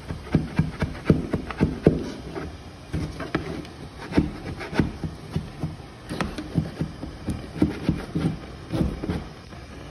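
Wide metal scraper scraping steam-softened wallpaper off a wall: an uneven run of short scrapes and taps, about two or three a second.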